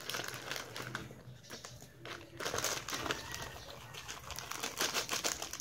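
Plastic instant-noodle packet crinkling and rustling in the hands in repeated bursts as it is shaken out over a bowl.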